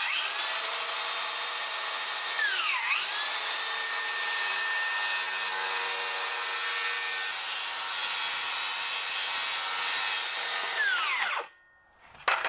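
Circular saw cutting through the edge of a plywood panel: the motor comes up to speed at once and runs with a steady high whine, its pitch dipping once about three seconds in and recovering. Near the end it winds down with a falling pitch and stops.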